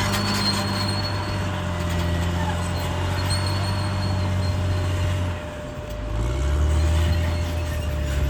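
Caterpillar D6R XL bulldozer's diesel engine running steadily. About five seconds in it drops off briefly, then revs back up and holds steady.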